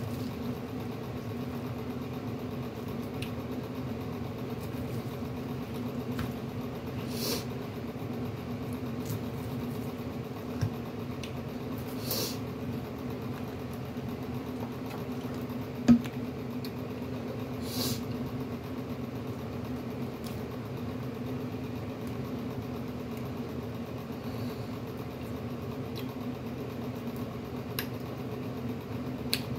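A steady low hum, with a few faint brief rustles of the plastic bag as hands peel shrimp, and one sharp knock about sixteen seconds in.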